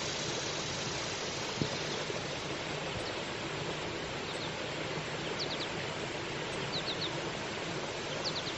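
Steady rushing of water from cascading creek waterfalls, an even hiss, with a few faint high chirps in the second half.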